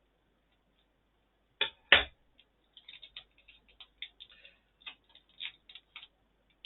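Two sharp clicks about two seconds in, then a run of light ticks and crinkles: scissors snipping open a foil Pokémon booster pack and the wrapper being handled as the cards are pulled out.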